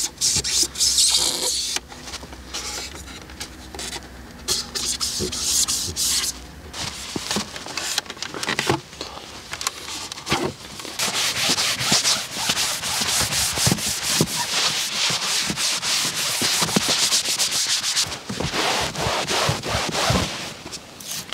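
Hand scrubbing on a car's surfaces during detailing: repeated rough rubbing strokes with short pauses between them.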